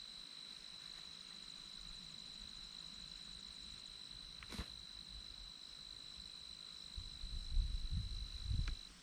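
An insect trills steadily on one high pitch and stops abruptly near the end. There is a single faint click about halfway through, and low rumbling handling or wind noise in the last two seconds. No shot is fired.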